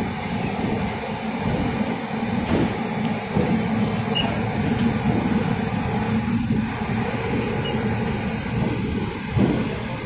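Steady rumble and rattle of a train running at speed, heard from aboard a moving train, with a couple of sharper knocks, one about two and a half seconds in and one near the end.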